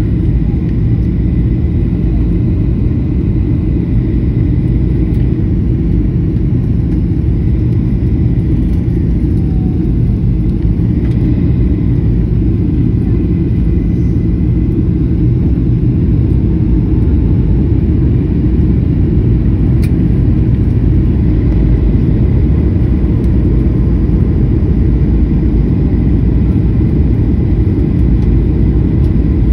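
Steady low rumble of an airliner cabin: engine and airflow noise, with a faint steady high whine above it.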